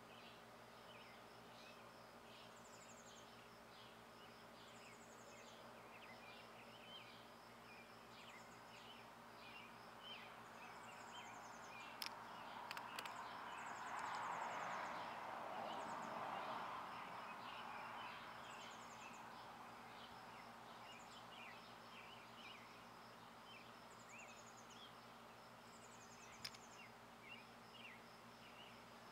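Faint outdoor ambience: scattered high chirps and short trills over a low steady hum, with a broad swell of distant noise that rises and falls in the middle. Two sharp clicks stand out, one a little before the middle and one near the end.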